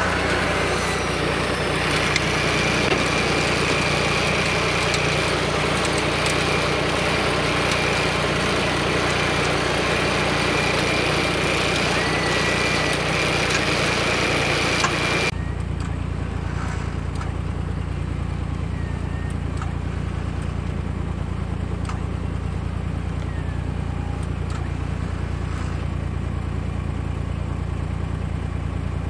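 John Deere 755 compact tractor's three-cylinder diesel engine running steadily. The sound turns abruptly duller and lower about halfway through.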